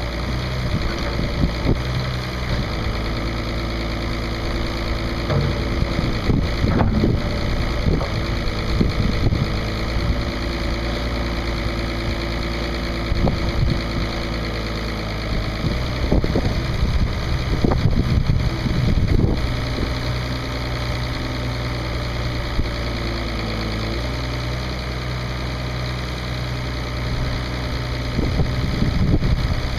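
International D282 six-cylinder diesel engine of a loader backhoe running steadily. Its note shifts a few times, and there are scattered clunks and rattles along the way.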